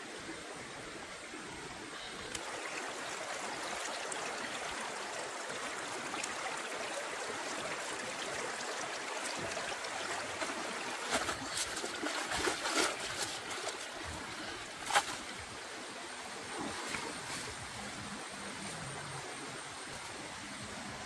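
A shallow rocky stream running steadily. A little past the middle comes a spell of louder splashing as a woven basket is lifted out of the water and the water pours out through it, followed by a single sharp sound.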